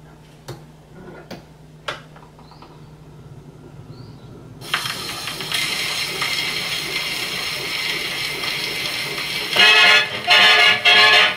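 Columbia 212 portable wind-up gramophone: a few sharp clicks as the soundbox is handled and set down, then about five seconds in the needle drops into the groove of the spinning 78 rpm record and a steady loud surface hiss starts. Near the end a band with brass starts playing through the acoustic horn.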